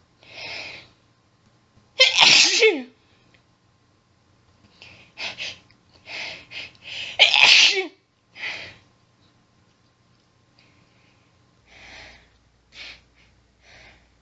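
A woman sneezing in a rapid fit. Two loud sneezes about five seconds apart each end in a falling cry, with shorter, softer sneezes and catches of breath around them and a few more near the end.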